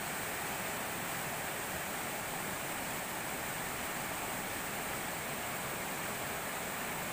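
Swift river water pouring over a low weir: steady rushing of whitewater.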